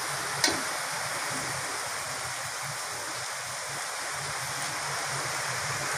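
Onion and spice masala frying in oil in a metal kadai: a steady sizzle, with one sharp knock about half a second in.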